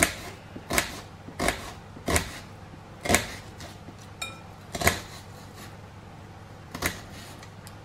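Kitchen knife slicing a red onion, the blade knocking down onto a chopping board about seven times at uneven intervals.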